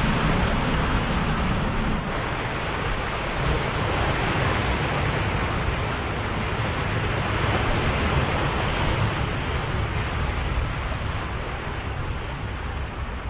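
Ocean surf: a continuous rush of waves with a deep low rumble underneath, swelling and easing slightly.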